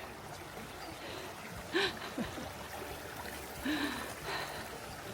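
Two short, breathy vocal sounds from a person, like gasps, about two and four seconds in, over a steady background hiss.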